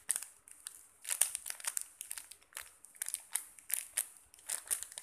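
Clear plastic packaging bag around a squishy toy crinkling as it is handled, in irregular clusters of short crackles.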